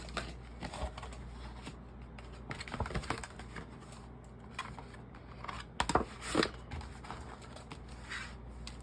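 Album packaging being opened and its contents handled: paper and cardboard rustling with scattered light clicks and taps, and a couple of louder knocks about six seconds in.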